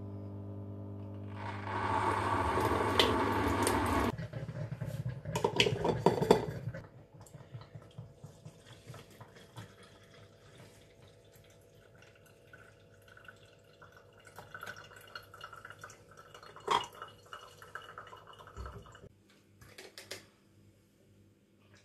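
A Geepas electric hot-water machine hums, then dispenses hot water into a plastic jug with a loud hiss and splashing for several seconds. Hot water then trickles quietly from the jug through a coffee filter cone into a Stanley steel mug. A few sharp clicks come near the end as the Stanley trigger-action mug is handled.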